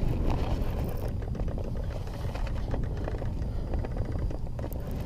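Wind rumbling steadily on the microphone, with scattered light clicks and knocks throughout.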